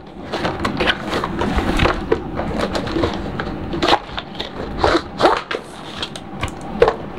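Cardboard packaging being slid apart: the inner tray of a toy laptop box is pulled out of its cardboard sleeve, with continuous scraping and rustling of cardboard on cardboard and on the tabletop, and many short knocks and taps throughout.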